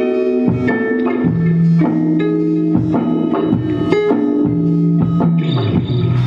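Live rock band playing an instrumental passage: electric guitar chords over a bass guitar line, with the notes changing every half second to a second.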